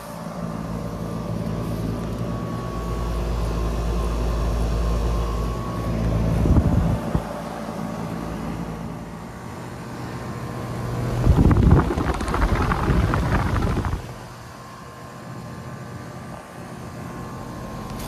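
Outdoor heat pump condensing units running: a steady electrical hum from the compressor and fan motor with the fan's airflow rushing over it. Wind buffets the microphone for a few seconds about two-thirds of the way through.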